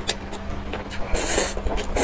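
Close-miked eating sounds of instant noodles: small wet chewing clicks, then one loud noodle slurp about a second in.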